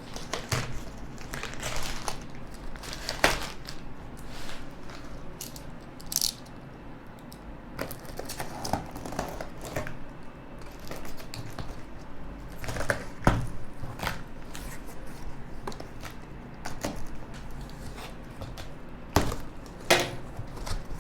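Cardboard box and plastic packaging being opened and handled: irregular rustling and crinkling, with a few sharp knocks scattered through.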